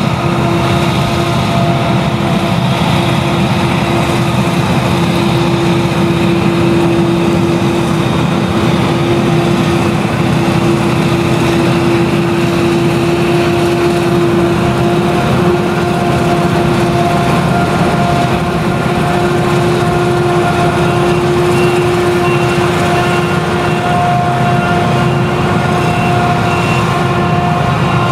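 Claas Jaguar 970 forage harvester with its MAN V8 engine running under load while chopping sorghum. It makes a loud, steady drone with a constant high whine on top.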